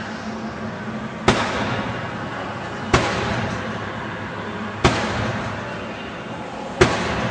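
Four heavy blows, about two seconds apart, from a long-handled tool striking the glazing of a fully glazed SR2+ security door during a forced-entry attack test. Each blow is a sharp crack followed by a ringing tail that dies away over about a second.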